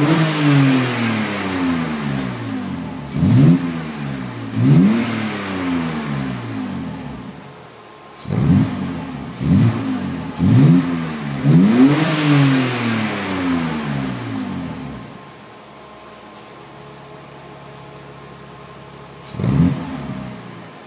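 BMW E46 325Ci's 2.5-litre inline-six through a Supersprint exhaust with the second resonator removed, free-revving in a series of quick throttle blips, each rising and falling back. About fifteen seconds in it settles to a quieter idle, with one more blip near the end.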